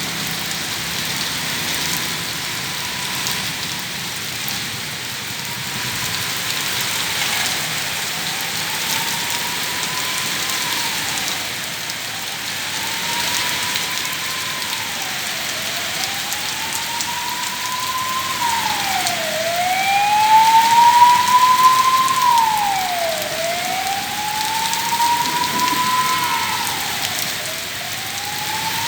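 Heavy rain falling steadily, with an emergency vehicle's siren wailing over it, rising and falling about every four seconds. The siren starts faint, grows louder to its loudest about two-thirds of the way in, then eases slightly.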